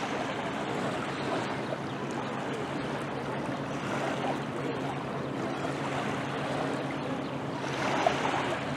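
Steady shoreline ambience: small waves lapping at the beach's edge and wind, over a low steady hum.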